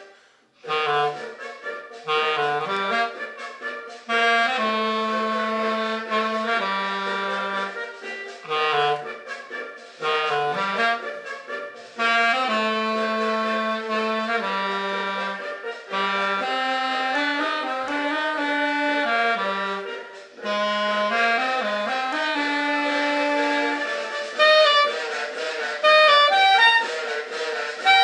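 Accordion playing a tune: a melody with chords over held bass notes, in phrases broken by brief pauses.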